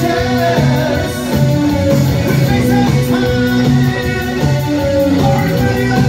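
Live new wave band playing loudly through a club PA, with guitar to the fore and a singer, recorded from within the audience.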